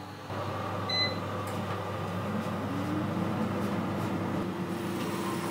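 Convection (fan) oven starting: a short electronic beep, then the fan spinning up, its hum rising in pitch and settling into a steady running tone.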